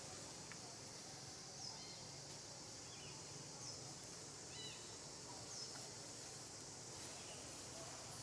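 Faint forest ambience: a steady high insect hiss, with a short high note that falls in pitch and repeats about every two seconds, and a few soft chirps.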